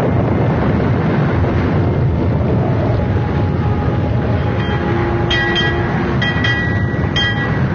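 Storm at sea sound effect: a loud, steady roar of wind and waves. Three short high buzzing tones cut through it in the second half.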